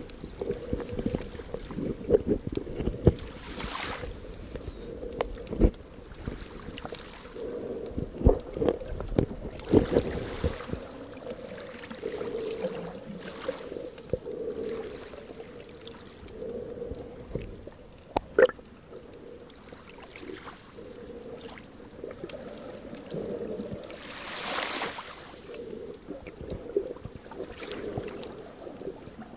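Muffled underwater sound picked up by a camera swimming over the seabed: a steady low murmur of water, with irregular knocks and thumps through the first ten seconds or so, and a few short rushes of noise.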